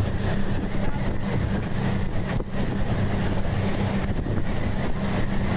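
Boat motor running steadily with a low, even hum, with wind buffeting the microphone.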